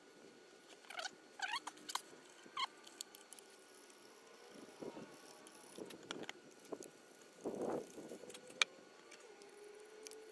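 Quiet outdoor ambience with light knocks, clicks and scuffs as a heavy timber post is handled and turned over, the loudest scuff about three quarters of the way through. A few short rising chirps come about one to three seconds in, and a faint steady hum runs through the second half.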